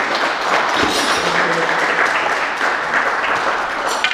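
Audience applauding and clapping, with a sharp click near the end.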